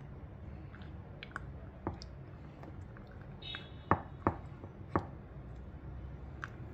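Wooden chopsticks stirring lemon, ginger and cloves in honey in a glass jar, clicking against the glass now and then, with a few louder clicks around four to five seconds in.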